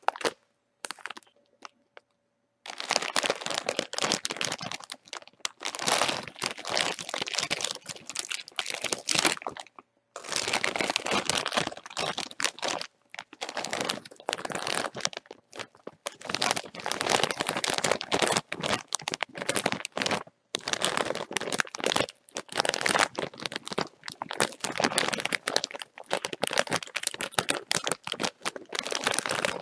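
Crisp packet being crinkled and scrunched by hand, a dense run of crackling with brief pauses near the start and now and then between handfuls.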